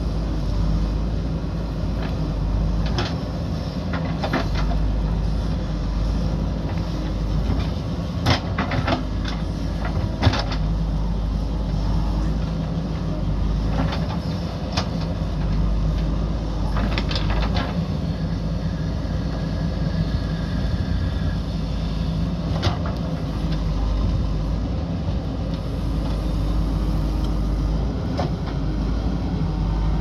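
JCB backhoe loader's diesel engine running steadily under load while the backhoe digs, with short sharp knocks now and then as the bucket and arm work the rocky soil.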